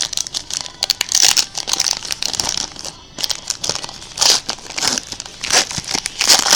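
Crinkling and rustling of plastic trading-card wrappers and sleeves as cards are handled, in irregular bursts with louder bunches about a second in and again near the end.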